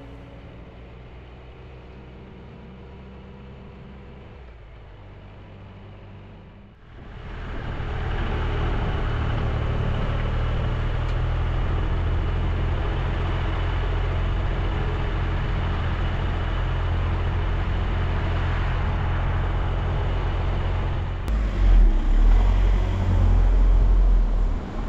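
Motorcycle riding through town streets: engine running under road and wind noise. It is quieter for the first several seconds, then grows much louder about seven seconds in and stays steady. Near the end it changes abruptly to a louder, uneven low rumble.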